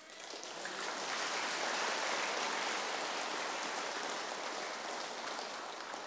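Audience applauding: many people clapping together, swelling over the first second and slowly tapering toward the end.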